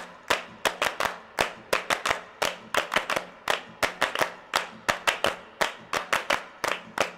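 Hands clapping in a steady, even rhythm, about three claps a second.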